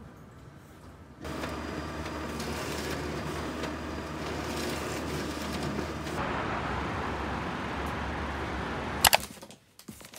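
Ricoh SP 8400DN laser printer running as it feeds printed sheets into the output tray: a steady machine noise with a low hum. It starts about a second in and stops after two sharp clicks near the end.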